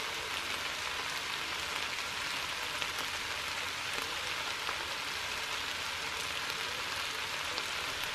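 Chicken biryani sizzling in a frying pan on the hob: a steady hiss with small crackles as the little water just added cooks off around the rice, chicken and vegetables.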